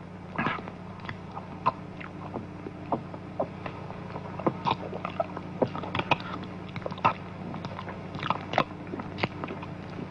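A man eating beans fast and noisily: irregular chewing, smacking and slurping sounds, with gulps from a cup, over a steady low hum on the soundtrack.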